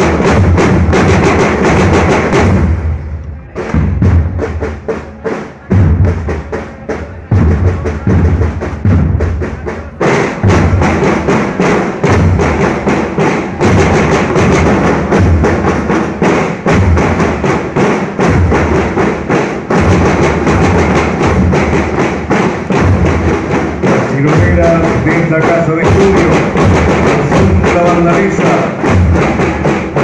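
A school marching band's drum line playing a march beat on marching drums. About three seconds in, the full drumming drops away to scattered strikes, and the whole section comes back in about ten seconds in.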